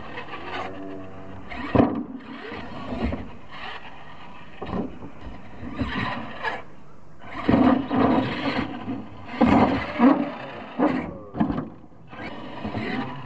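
RC monster truck motor revving in short, irregular throttle bursts, its whine rising and falling, with a few sharp knocks from the truck landing and bouncing on the dirt.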